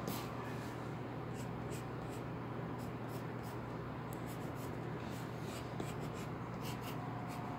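Pencil scratching on paper in many short, quick strokes as a wheel is sketched, over a steady low hum.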